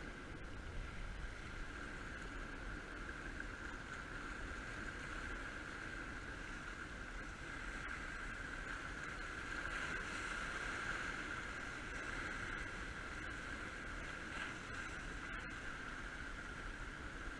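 Small sea waves washing steadily over the rocks of a jetty, mixed with wind noise, swelling slightly in the middle.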